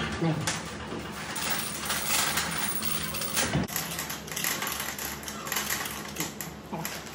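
Hand chain hoist clinking and clicking, with light metal clanks, as a heavy steel workpiece hangs from it in a sling.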